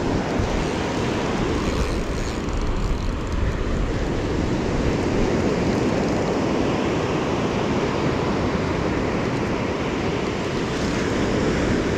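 Ocean surf washing on the beach, with wind buffeting the microphone: a steady rush of noise.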